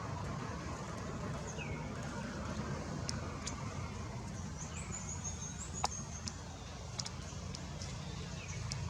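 Outdoor ambience: a steady low rumble, with a few faint short chirps and several sharp clicks.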